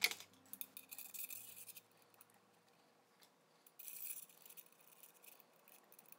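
Faint metallic scraping and clicking of rotisserie spit forks being slid along the steel spit rod and pressed into a raw chicken, in two short spells: about a second in and again about four seconds in.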